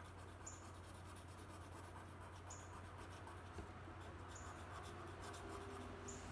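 Colored pencil rubbing and scratching faintly across watercolor-painted paper in short blending strokes, over a low steady hum.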